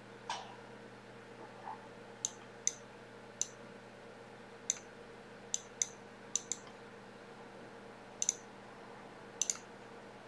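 Computer mouse button clicks, about a dozen short sharp clicks at irregular intervals, several in quick pairs, over a faint steady hum.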